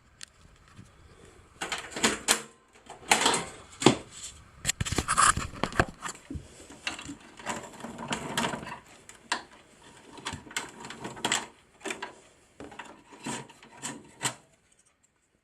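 Clicks, knocks and rubbing of a hard drive being released and pulled out of a Dell Dimension 5150's tool-less drive bay by hand. Irregular clicks and knocks come one after another for most of the time, with scraping between them.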